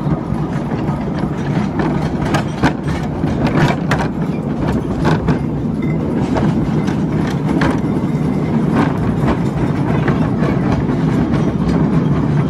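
Miniature railway train running along the track, heard from the passenger car: a steady low engine hum with irregular clicks and knocks of the wheels over the rail joints.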